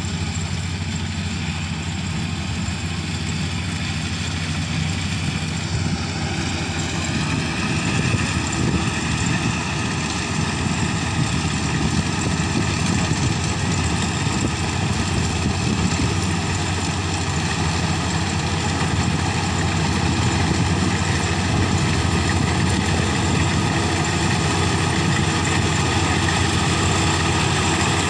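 Kubota DC-35 mini rice combine harvester's diesel engine running steadily under harvesting load, its pitch rising a little about six seconds in and growing louder as the machine comes closer.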